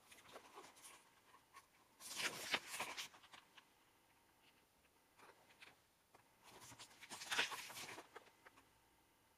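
Paper pages of a thick album book being turned and handled, with two louder rustling page turns about two seconds in and again around seven seconds in, and softer paper brushing between.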